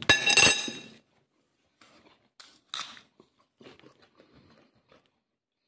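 A man chewing a mouthful of bread and grilled pork skewer close to the microphone, heard as scattered soft crunches. It opens with the loudest sound, a sharp knock that rings briefly for about a second.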